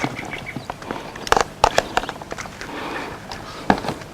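A few light clicks and knocks of ingredients and kitchen utensils being handled over a salad bowl, in small clusters about a second in and again near the end.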